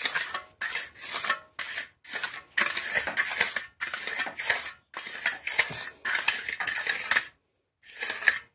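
Steel finishing trowel scraping back and forth over wet cement in quick sweeps, about a dozen strokes with a short pause near the end. This is the first polishing pass, with the blade tilted left and right to bring up a sheen on the floor.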